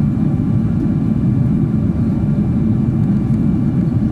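Airliner cabin noise in cruise: a steady low rumble of the engines and airflow, with a faint steady whine above it.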